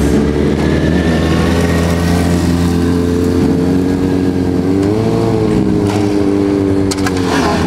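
Sport motorcycle engine held at steady revs while the bike is ridden in a wheelie. The revs rise briefly about five seconds in and drop near the end.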